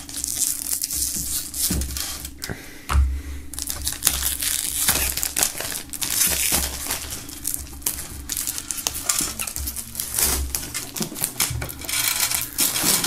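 Plastic shrink-wrap film slit with a knife and peeled off a metal tin box, crinkling and crackling throughout, with scattered clicks and knocks from handling the tin.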